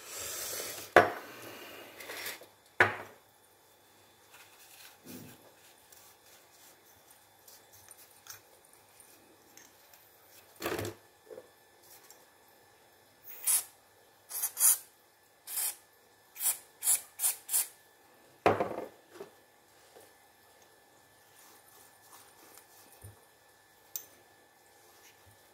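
Short hissing bursts from an aerosol oil spray can, about seven in quick succession in the middle, with a longer hiss at the start. Around them come sharp clicks and knocks from the metal wireless-microphone handle being handled and wiped. The oil is sprayed over the cleaned battery contacts to keep air and corrosion off them.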